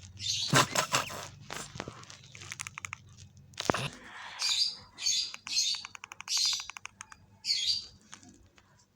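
Bird-like chirps, short and high, repeating about once or twice a second, with a quick rattling trill in between.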